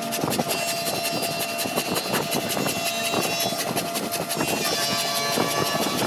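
Wooden strips knocking and clattering as they are handled, over a workshop machine running steadily with a rapid, even ticking.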